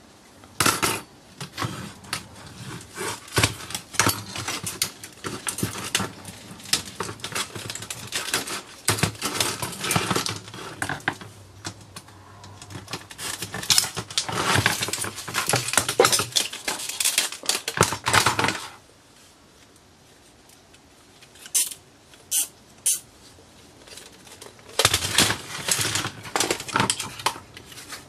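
Parts of a disassembled Sony DVP-NS530 DVD player clicking and rattling as they are handled and set down on a workbench: the circuit boards, the plastic disc loader and the front panel. The clatter is dense for most of the first two-thirds, pauses, gives a few sharp clicks, then picks up again near the end.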